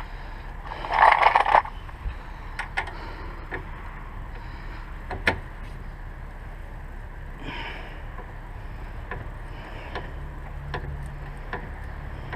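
Hand-tool work on a car: a short hissing or scraping burst about a second in, a fainter one midway, and scattered light metallic clicks and knocks, over a low steady hum.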